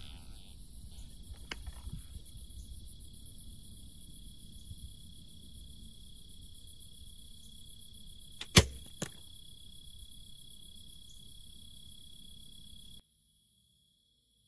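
Compound bow shot: one sharp, loud snap of the string about eight and a half seconds in, with a fainter second knock about half a second later. Behind it a steady insect chorus of crickets hums, cutting off suddenly near the end.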